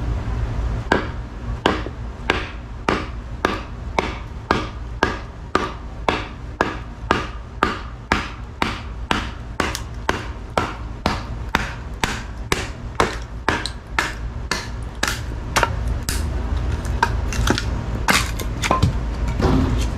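A baton striking the spine of a Jungle King knife with its six-inch 1065 steel blade, driving it down through a knotty log to split it. There are about thirty sharp, evenly spaced blows, about three every two seconds, and the last few near the end come less regularly.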